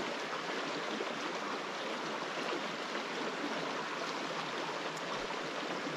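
Small stream flowing: a steady, even rush of running water.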